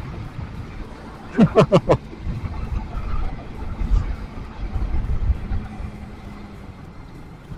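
Road and wind noise from a motorcycle riding in slow traffic, with a steady low rumble. About a second and a half in come four quick, short sounds, each falling in pitch, the loudest thing heard.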